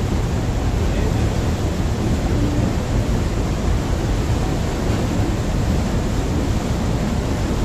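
Passenger ferry under way: a steady low rumble of the ship's engine mixed with the rushing wash of water along the hull.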